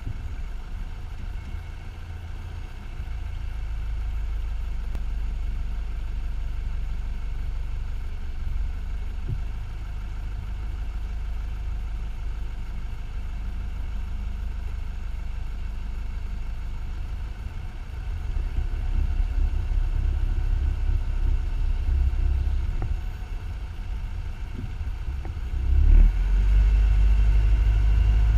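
Car driving slowly, heard as a steady low rumble of engine, tyre and wind noise. It grows louder as the car picks up speed about two-thirds of the way in, with a sudden jump in level near the end.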